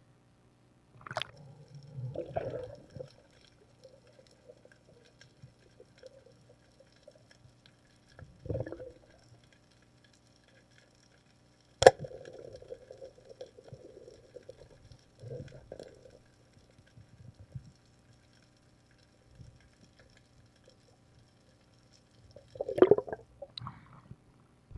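Water sloshing, splashing and bubbling around a diver's camera as he goes under and surfaces again, heard in bursts. One sharp click about twelve seconds in is the loudest sound.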